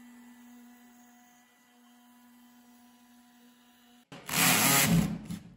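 CNC engraving machine spindle running with a steady hum while milling a slot into a laminated board. Near the end it cuts off abruptly, and a sudden loud scraping, rubbing noise lasts about a second and a half.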